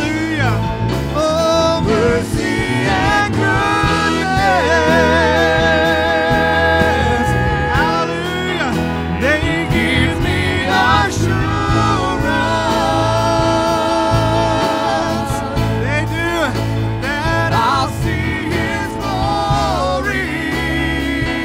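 Live church worship band music: singers holding long notes with vibrato over keyboard, acoustic guitar and conga drums.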